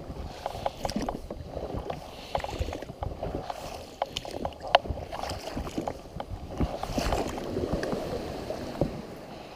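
A small boat on the water, with oar strokes and irregular knocks and clicks from the boat and its gear.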